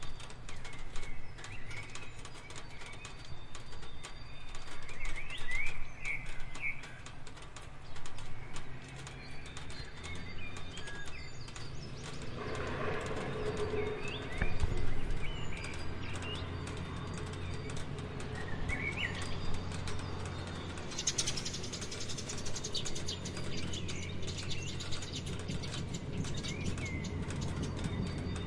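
Rain falling and pattering, with a few birds chirping now and then; the rain hiss gets brighter about three-quarters of the way through.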